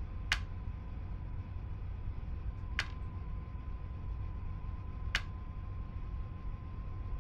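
Three sharp ticks, evenly spaced about two and a half seconds apart, over a low steady hum; a faint steady high tone comes in with the second tick.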